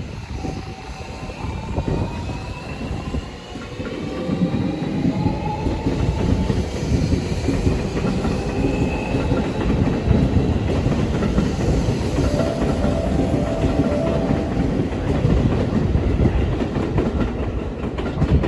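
Seibu Railway electric train running by, its wheels rumbling and clattering on the rails, with a motor whine that rises in pitch over the first several seconds.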